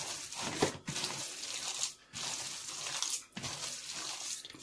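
Hand kneading raw chicken mince in a plastic bowl: wet squelching and slapping in repeated strokes, about one a second.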